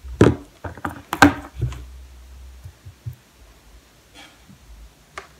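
Sharp clicks and knocks of makeup brushes and cases being picked up and set down, four or five in the first two seconds, then only a few faint small clicks.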